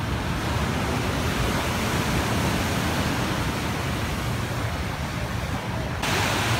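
Steady rushing noise of sea surf and wind, with a low rumble of wind on the microphone. About six seconds in it switches abruptly to a brighter, hissier wash of breaking waves.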